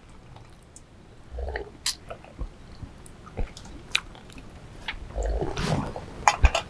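Two people sipping a drink from enamel mugs: quiet slurps, swallows and small mouth clicks, with a longer slurp about five seconds in. A few sharp clinks near the end as an enamel mug lid is handled.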